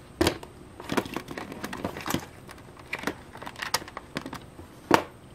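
Irregular clicks and knocks from handling a 1/24 diecast model car on a wooden tabletop while fingers work its front wheel off, the loudest click about a second before the end.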